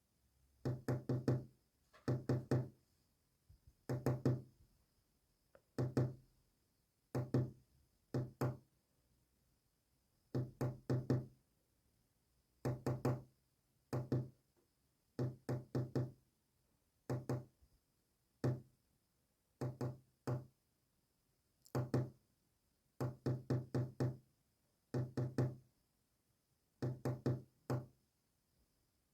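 Morse code sent as short, low-pitched pulses in clusters of about two to five, with short pauses between the letters.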